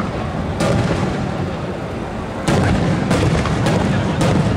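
Aerial firework shells bursting overhead: about five sharp booms over a steady low rumble, the loudest about two and a half seconds in.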